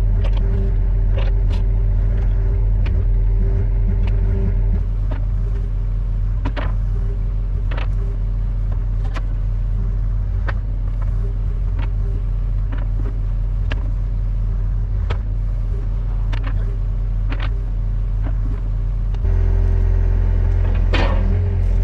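Heavy diesel engine running steadily, with scattered sharp clicks and knocks over it; the engine gets louder near the end.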